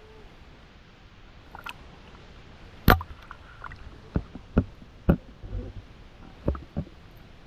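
A sharp splash-like knock just before three seconds in as the action camera goes under the river surface, then a string of low, muffled thumps and water sloshing against the camera underwater.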